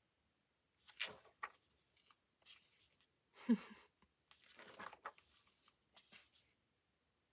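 Paper pages of a spiral-bound diary being turned one after another, each turn a short swish or rustle, several in a row. The loudest stroke, about halfway through, carries a brief low pitched squeak.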